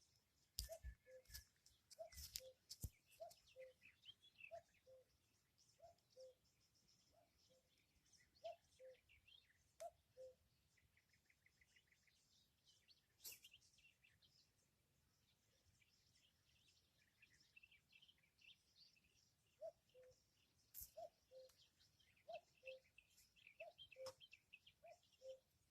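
Common cuckoo calling its two-note falling "cuck-oo", repeated about once a second in a long series that pauses for several seconds midway and then resumes. Faint chirps of smaller birds sound behind it, with a few sharp clicks near the start.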